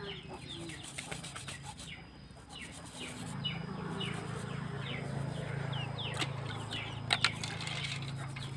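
Snails being scrubbed with brushes in a pot of water, with scratching strokes and a few sharp clicks of shell, while chickens cluck repeatedly in the background. A low steady hum sets in about three seconds in.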